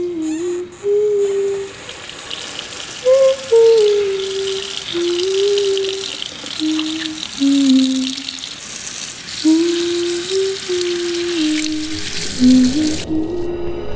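Water from a kitchen tap running into a sink as a knife is rinsed under it, with a slow tune hummed over it in single held notes. The running water cuts off suddenly near the end, and a low drone comes in.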